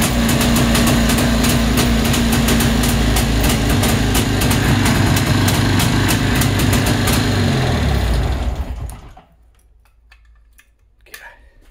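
ČZ 350 motorcycle's air-cooled two-stroke twin engine idling steadily on its first run after winter storage, then winding down and stopping about eight or nine seconds in.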